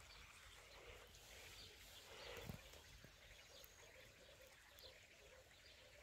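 Near silence: faint outdoor ambience with a few faint bird chirps and a soft low bump about two and a half seconds in.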